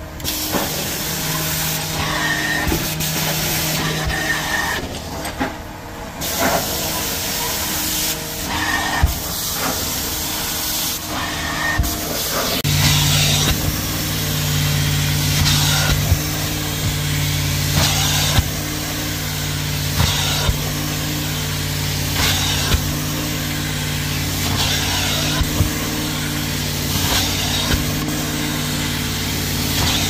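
Carpet-extraction stair tool hissing with suction and spray as it is pulled across carpeted stair treads, in passes about every two seconds, over the steady hum of the extraction machine, which becomes stronger about halfway through.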